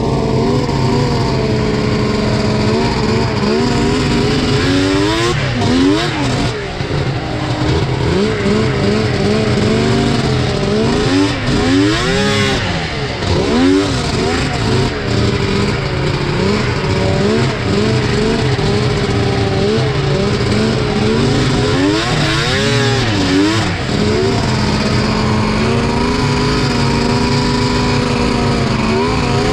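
Two-stroke snowmobile engines running on the trail, the pitch rising and falling with the throttle. Several times an engine's pitch sweeps up and back down as it revs.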